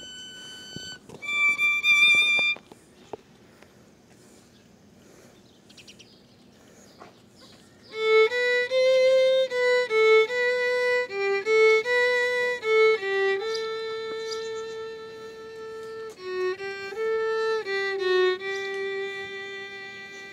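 Solo violin. A held high note with vibrato ends about a second in and is followed by a brief higher note. After a pause of about five seconds, a melody in the violin's middle range starts at about eight seconds, moving note to note, with longer held notes toward the end.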